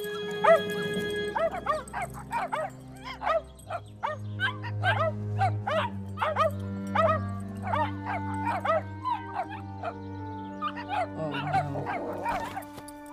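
Golden retriever puppies yipping and barking in a quick, ongoing string of short high yaps, over background music with long held low notes.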